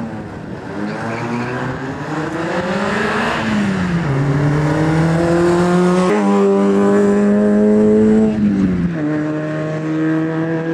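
Race car engine at full throttle on a hill-climb run, its pitch climbing under acceleration and dropping sharply at upshifts, about three and a half seconds in and again near nine seconds. It is loudest shortly before the second shift.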